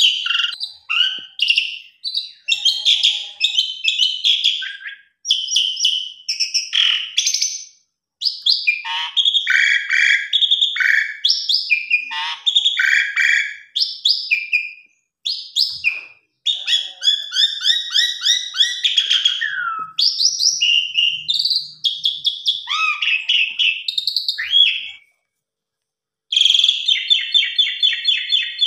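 Javan pied starling (jalak suren) singing a long, varied song of loud whistles, glides and rapid rattling chatter in phrases broken by short pauses, with a silence of about a second near the end.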